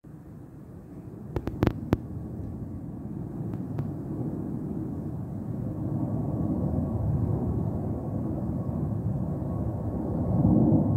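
Buff-tailed bumblebee queen (Bombus terrestris) buzzing close to the microphone as she forages on a flower, a steady low drone that swells a little near the end. A few sharp clicks sound between one and two seconds in.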